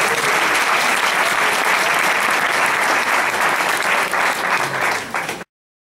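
Audience and panelists applauding, a dense steady clapping that cuts off abruptly about five and a half seconds in.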